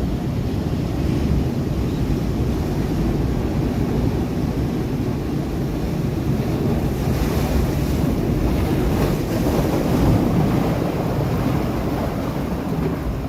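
Sea waves breaking against rocks: a continuous rushing wash, swelling louder and brighter about seven seconds in before easing. There is a low wind rumble on the microphone underneath.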